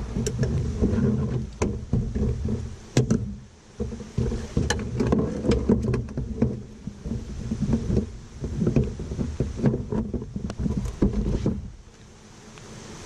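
Irregular knocks, clunks and rubbing of gear being handled in a Kevlar canoe as the portage yoke is set up, picked up loudly through the hull, over a heavy low rumble. The handling stops about twelve seconds in.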